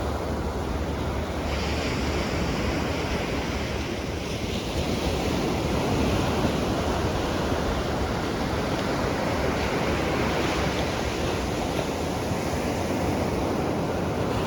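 Ocean surf: waves breaking and washing up the shore in a steady rush, with wind buffeting the microphone as a low rumble, strongest near the start.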